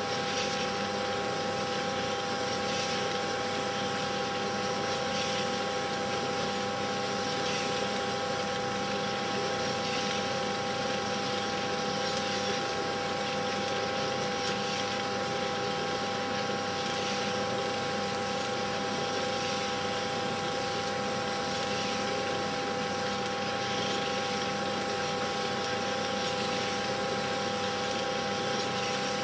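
Steady mechanical whirr with a constant hum, unchanging throughout: a cine film projector running.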